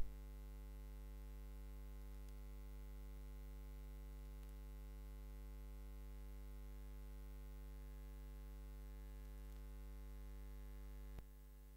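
Steady electrical mains hum and buzz from the audio line, with no other sound over it. About eleven seconds in there is a click, and the hum drops quieter.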